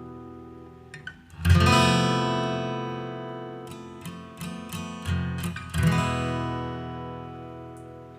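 Acoustic guitar music: a chord strummed about a second and a half in and again near six seconds, each left to ring and fade, with a few shorter picked notes between.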